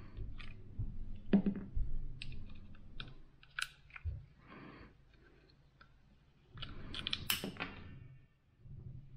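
Small metal clicks and scrapes as an Allen key backs a screw out of a rifle scope mount and the loosened parts are handled, with a denser run of clicks and rattles about seven seconds in.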